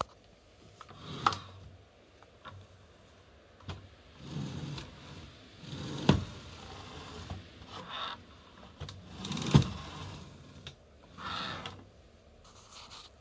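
Intermittent handling sounds around an idle sliding miter saw: light rubbing and scraping with a few sharp knocks, the loudest about a second, six seconds and nine and a half seconds in. No saw motor is running.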